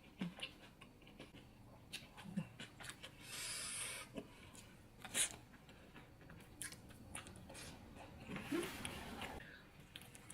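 Close-miked eating sounds of a burger being chewed: scattered wet mouth clicks and smacks, with a longer noisy bite or chew about three seconds in and another near the end.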